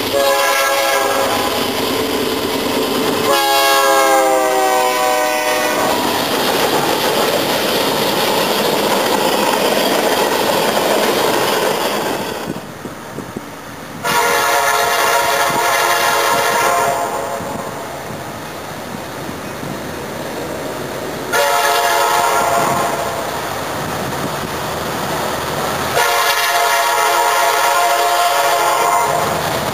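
Freight diesel locomotive horns. A BNSF locomotive blows its horn twice, the second blast falling in pitch as the train rumbles past. After a short break, a CSX locomotive approaching a grade crossing sounds three blasts: long, short, then long.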